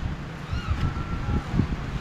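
Low, uneven rumble of wind buffeting the microphone, with irregular thumps, and a faint high tone around the middle.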